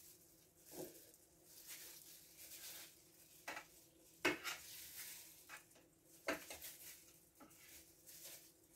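A metal ladle clinking against a steel pot and a glass jar as thick jam is spooned into the jar: a handful of sharp clinks, the loudest a little past four seconds in, with faint scraping between.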